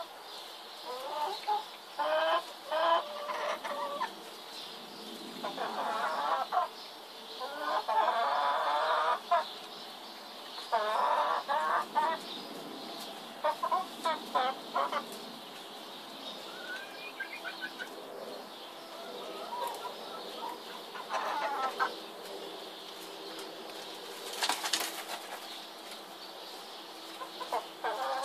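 Chickens clucking in repeated runs of short calls, some clusters drawn out over a second or two, with quieter gaps between. One brief sharp noise comes about three-quarters of the way through.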